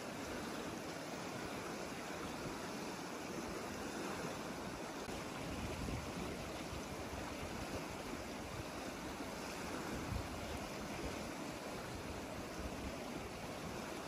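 River water flowing steadily, an even rushing noise, with a couple of soft low swells partway through.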